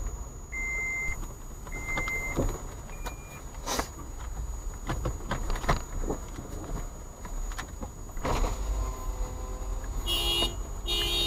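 Car heard from inside its cabin: a low steady engine rumble begins at once, with four short high electronic beeps in the first few seconds. Scattered clicks and knocks follow, and two brief pitched electronic tones come near the end.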